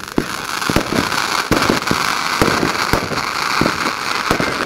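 Fireworks display: a continuous hiss with many sharp bangs and pops going off in quick succession.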